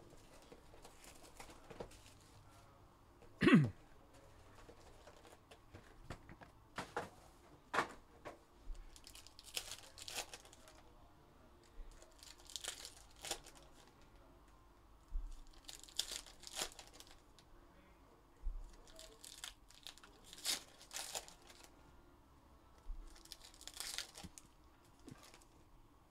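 Trading-card packs from a 2021 Upper Deck Goodwin Champions box being torn open, their wrappers crinkling in short bursts every few seconds as cards are handled. About three and a half seconds in, one loud brief sound falls sharply in pitch.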